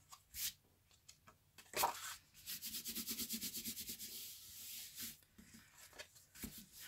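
Hands rubbing a freshly glued embossed cardstock layer flat onto a card base, pressing the liquid glue down: a run of quick, even back-and-forth strokes of skin on paper, about six a second, in the middle. Before and after the strokes there are lighter paper rustles and taps as the card is handled.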